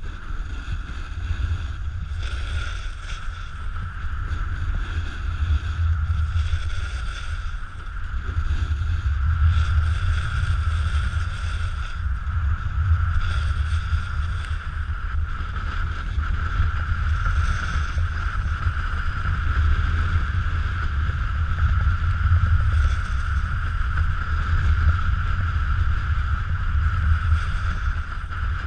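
Wind buffeting the microphone of a pole-mounted action camera during a snowboard run down a groomed piste: a low rumble that swells and eases, with a steady high whistle-like hum throughout and the hiss of the board on the snow.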